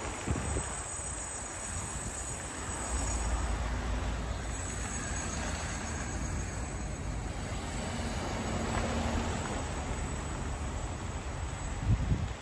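Vehicles driving slowly along a snowy street: engine and tyre noise with a steady low rumble.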